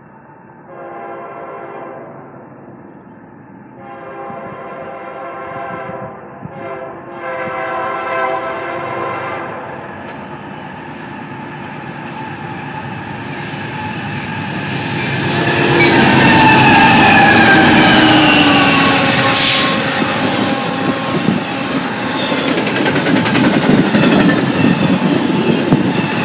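Horn of a westbound BNSF freight's lead locomotive sounding the grade-crossing signal (long, long, short, long) as the train approaches. The diesel locomotives then pass at speed, their engine tones falling in pitch, followed by the rumble and clickety-clack of double-stack intermodal container cars.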